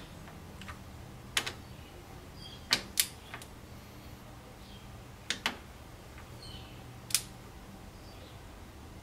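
Sharp metallic clicks from a torque wrench and socket being pulled on cylinder-head bolts, about six of them, singly and in pairs, over a faint steady hum. The wrench is set so low in its range that it does not break cleanly at the torque value.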